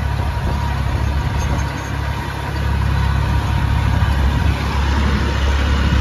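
Sonalika tractor's diesel engine running steadily under load while pulling a cultivator through the field in low-range fourth gear, with a slight dip in loudness about two seconds in.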